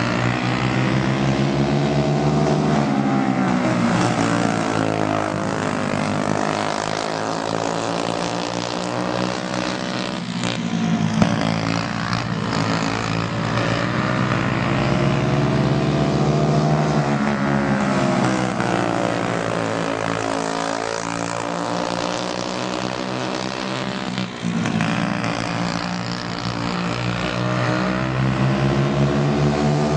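Briggs & Stratton Animal single-cylinder four-stroke kart engines racing on a dirt oval. The pitch climbs as the karts accelerate down the straights and drops as they back off into the turns, over and over.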